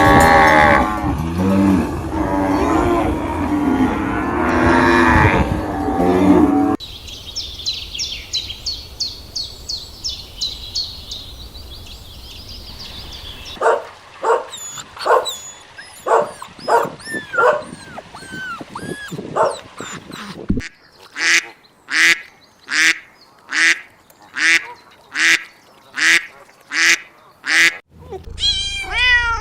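Recorded animal calls played one after another. First comes a dense clamour of calls for about seven seconds, then rapid high chirping. Next is a run of pitched calls about twice a second, then an even series of sharp calls, and a new animal's calls start right at the end.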